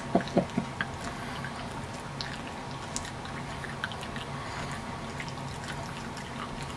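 A man's few short laughs in the first second, then steady room hiss with faint scattered clicks.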